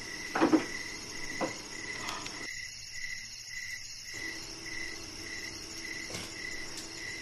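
Insects chirping in a steady, regular rhythm a little over twice a second over a constant high insect drone. A short thump about half a second in is the loudest sound, with a fainter knock about a second later.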